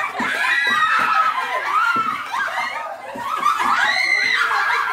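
Several women laughing loudly together, with high-pitched squeals and overlapping voices.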